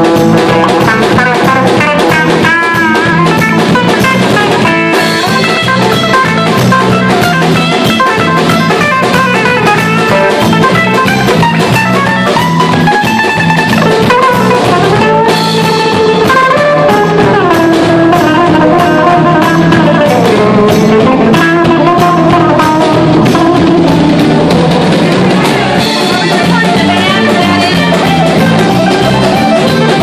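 Live band playing loud and without a break: electric guitar and drum kit, with a fiddle, and a lead melody that slides and bends in pitch.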